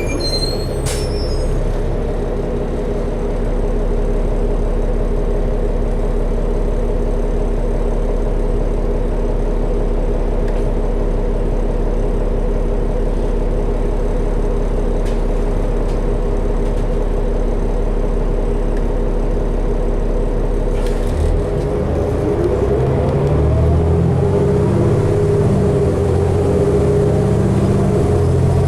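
Interior sound of a 2012 New Flyer D60LFR articulated diesel bus under way, its engine and drivetrain giving a steady drone. About 21 seconds in the engine note changes, and a rising whine follows as the bus pulls away and speeds up.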